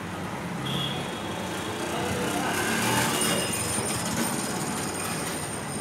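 Busy roadside ambience: steady traffic noise with faint voices in the background.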